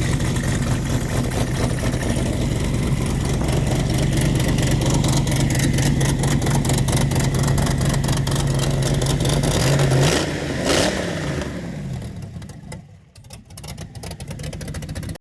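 Race car engine running rough and loud through a broken exhaust header, then shut off about ten seconds in and winding down, leaving a few light ticks.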